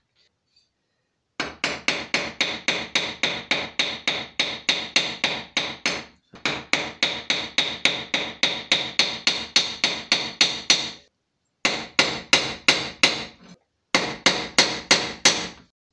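Small hammer striking an iron lock plate and hinge held on a bench vise in quick, ringing metal-on-metal blows, about four to five a second, fixing the hinge in place. The blows come in four runs with short pauses between, starting about a second and a half in.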